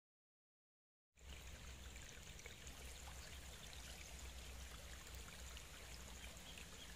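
Silence for about a second, then faint, steady flowing-water ambience of a river stream.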